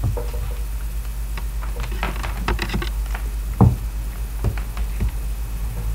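Steady low electrical hum with a scattering of small clicks and taps, a cluster of them about two seconds in and one louder knock about three and a half seconds in.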